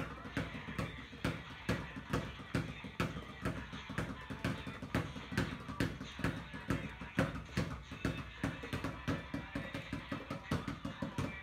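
Two basketballs being dribbled at once on a wet tiled floor: a quick, steady run of bounces, about four to five a second.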